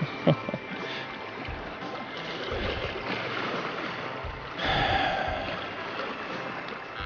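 Small sea waves washing and splashing against shoreline rocks, with a sharp knock just after the start and a louder surge of water about two-thirds of the way through.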